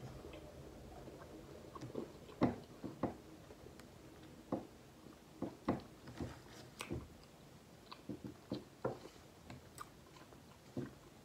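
People chewing soft red velvet cake donut, with scattered wet mouth clicks and smacks at an irregular pace.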